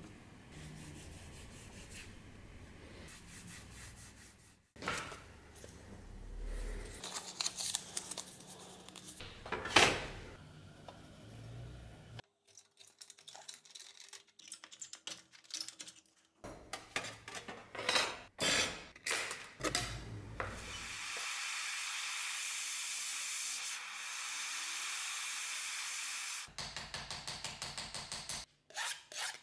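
Hand-workshop sounds in quick succession: rubbing and scraping, then hand shears cutting thin brass sheet in sharp snips. A steady hiss follows for about five seconds, and near the end comes a quick run of light hammer taps on brass sheet over a steel block.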